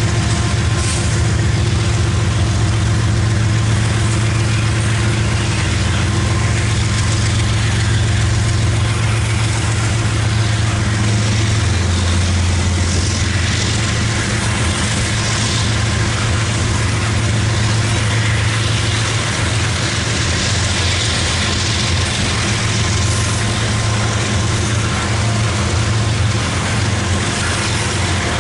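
Loaded coal hopper cars of a CSX freight train rolling past, a steady loud rumble of steel wheels on rail over a low hum that drops slightly about twelve seconds in.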